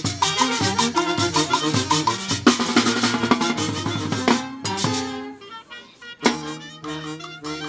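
Peruvian folk orchestra playing a lively tune on saxophones, clarinet, violin, drum kit and metal scraper. Around four and a half seconds in, the full band breaks off for a short drum fill, then plays on more quietly with a bass line and horns.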